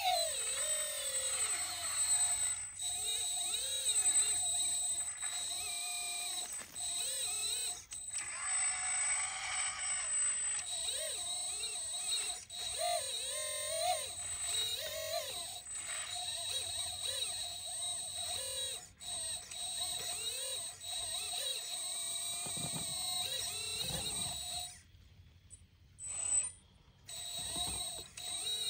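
1/14 hydraulic RC excavator running, its motors whining with a pitch that rises and falls every half second or so as the boom and bucket move, over a steady high whine. The sound drops out briefly near the end.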